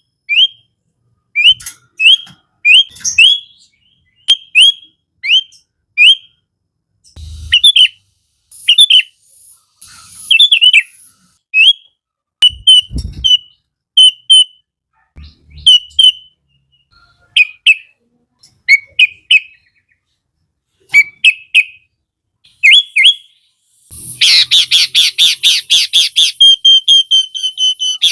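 Sooty-headed bulbul (kutilang) singing: short rising chirps in ones, twos and threes with pauses between. Near the end this becomes a fast unbroken run of loud chirps, several a second.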